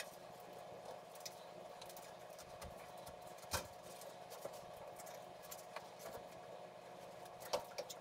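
Faint scattered clicks and scrapes of hand work on a furnace vent pipe, with sharper knocks about three and a half seconds in and near the end, over a steady faint hum.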